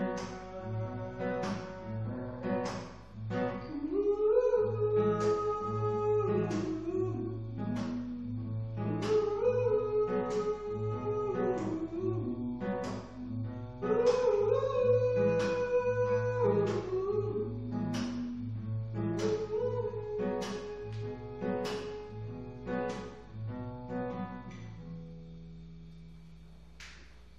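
Acoustic guitar strummed while a man sings over it in four long phrases with held notes. Near the end the strumming stops and a final chord rings out and fades.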